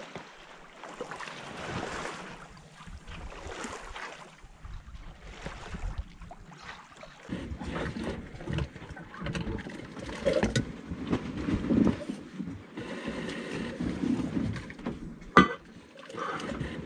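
Wind on the microphone and sea sounds aboard a sailboat in light wind; from about seven seconds in, close handling noises of someone working by hand in the cockpit, with one sharp click near the end.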